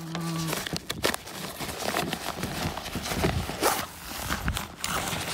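A fabric bag being opened and rummaged, with rustling and irregular knocks and clicks as the walking sticks inside are handled and pulled out.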